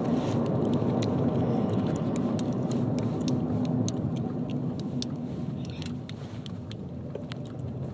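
Steady low road rumble of a car driving, heard from inside the cabin, with a scatter of light clicks.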